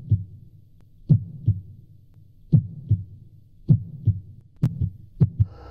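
Heartbeat sound effect: slow pairs of low thumps, about one pair every 1.3 seconds. Near the end a sharp, brighter hit comes and the beats come faster.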